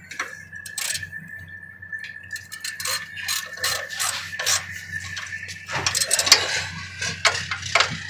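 Irregular metallic clicks and clinks of a 9/16-inch hand tool tightening a nut and washer down on a steel bolt, busier near the end. A faint steady high tone sits under the first part.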